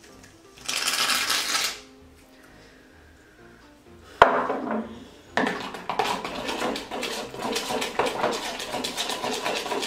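Shaving foam hissing out of an aerosol can for about a second. About four seconds in there is a sharp knock, then a spatula stirring and scraping slime around a bowl in a quick run of clicks.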